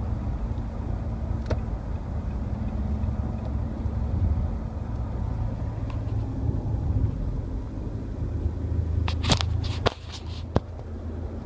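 Steady low hum with a faint buzzing tone in a 2013 Nissan Pathfinder while cruising, a noise that began recently after about 35,000 miles and that the owner is unsure is normal. A few sharp clicks come about nine seconds in, and the hum drops off at about ten seconds.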